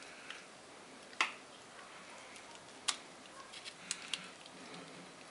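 A few separate sharp clicks of needle-nose pliers and a screwdriver tip against the plastic terminal block of a surface-mounted power outlet as wires are pushed into its terminals.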